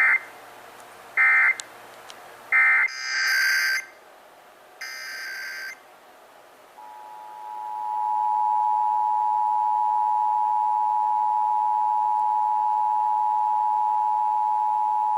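Emergency Alert System data tones: three short end-of-message bursts about a second apart, then two longer SAME header bursts. About seven seconds in, the EAS two-tone attention signal (853 and 960 Hz together) comes in, swells up and holds steady.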